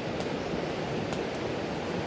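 Steady rushing of a mountain stream, with a few faint crackling pops from a wood campfire.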